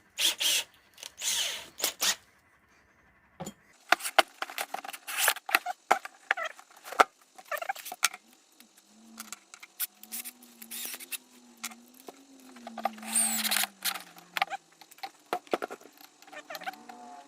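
Irregular clicks, knocks and scraping from parts and tools being handled while screwing a boat's seat supports into place, with a faint low wavering whine in the middle.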